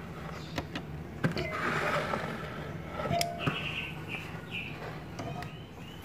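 Refrigerator compressor humming steadily, with a few sharp clicks and a short soft hiss about one and a half seconds in. The refrigerant circuit is empty, lost through a leak.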